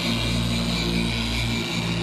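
A motor running steadily at one speed: a constant droning hum with a strong low pitch.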